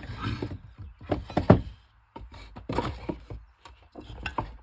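A round rat file pushed through the cutter teeth of a Stihl chainsaw chain, sharpening a dull chain: several separate rasping strokes with sharp knocks and taps between them, the loudest about a second and a half in.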